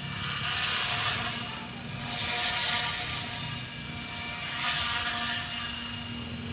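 KDS 700-size electric RC helicopter hovering: a steady whine of several high tones from the motor and drive, under the rotor's swishing, which swells and fades every two seconds or so.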